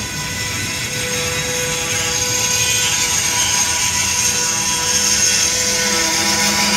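Freight train of tank cars rolling through a railroad crossing: a steady rumble of wheels on rail with a faint steady whine, growing slightly louder.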